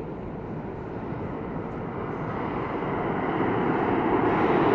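Subway train rumbling in the tunnel, growing steadily louder as it approaches or picks up speed, with a rising hiss near the end.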